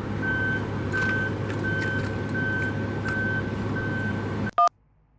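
Truck engine running with a reversing beeper sounding a steady beep about every 0.7 seconds; both cut off suddenly about four and a half seconds in. A short two-tone electronic beep, like a phone keypad tone, follows near the end.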